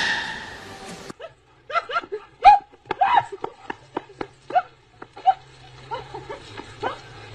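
A dog barking and yelping in quick, short calls, several a second, with a low steady hum underneath in the second half. At the very start comes the fading end of a loud squeal, the baby giant panda's sneeze.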